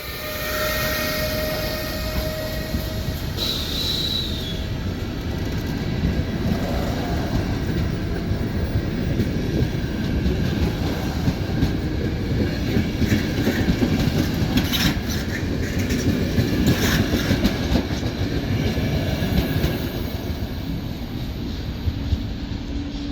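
A train running past on the rails: a steady rumble with scattered clicks of the wheels over the track, and a short high squeal about four seconds in.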